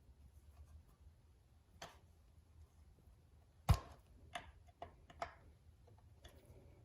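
A handful of separate sharp metallic clicks and taps, the loudest about three and a half seconds in, from a flathead screwdriver working the loose screws on the brass ring of an outboard motor's timing plate to tighten them.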